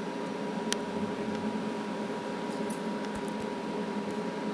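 Steady hum and hiss of background noise, with a few faint, sharp clicks, one about a second in and a small cluster near the middle.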